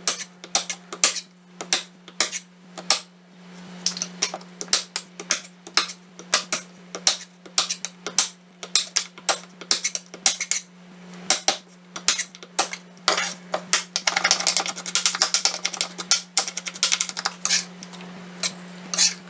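Kitchen knife chopping and crushing garlic cloves on a wooden cutting board: sharp knocks of the blade against the board, about two a second, quickening into rapid fine chopping about three-quarters of the way through.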